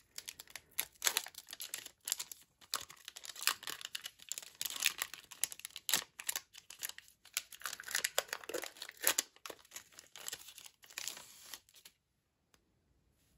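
Foil wrapper of a Panini Prizm basketball card pack torn open and crinkled by hand, in a run of quick rustling tears that stops near the end.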